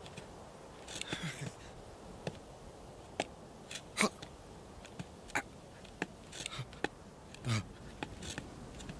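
Scattered soft clicks and scuffs of a sheep's hooves shifting on rock, a dozen or so at uneven intervals, a couple with a dull low thud, over a faint steady background.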